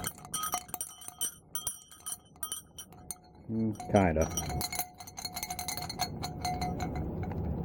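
Antique brass sleigh bells jingling as they are shaken by hand: rapid rattling strikes with a ringing tone, dying away near the end.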